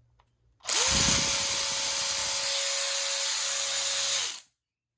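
DeWalt 12-volt cordless ratchet running free with no load for about three and a half seconds. Its motor whine rises quickly as it spins up, holds steady, and then stops.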